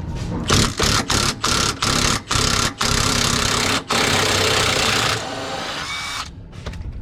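Impact wrench running in a string of short trigger bursts, then one longer run, spinning off a rear lower control arm bolt that has already been broken loose.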